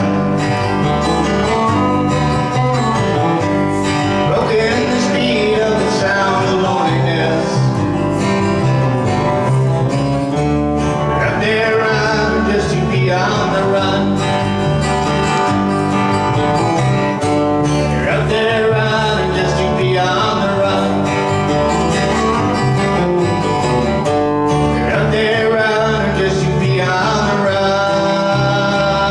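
Country-bluegrass band music on acoustic string instruments, guitar to the fore, over a steady beat.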